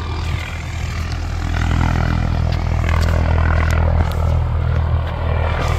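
Medevac helicopter running close by: a steady low hum from its rotor and engine that grows stronger about a second and a half in.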